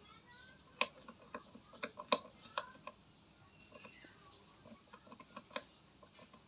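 Rabbit nibbling and scratching at dry grass and soil: a run of irregular sharp clicks and crunches, thickest in the first three seconds, the loudest about two seconds in.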